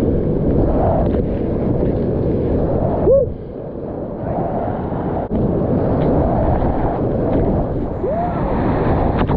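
Whitewater rapids rushing and churning around a kayak, heard close up from a camera on the boat, with water and wind buffeting the microphone. A brief louder splash about three seconds in, after which the rush is quieter for a couple of seconds.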